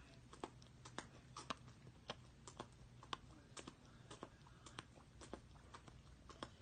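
A dog chewing on a rubber Kong toy: faint, irregular clicks and smacks of teeth and mouth, about three a second.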